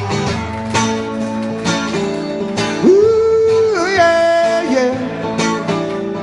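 Song with strummed acoustic guitar. About three seconds in, a singer holds one long note that bends at its end.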